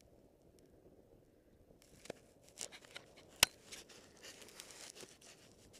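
A climber's boots crunching and scraping on snow and rock, with rustling of clothing and gear, beginning about two seconds in. One sharp click, the loudest sound, comes near the middle.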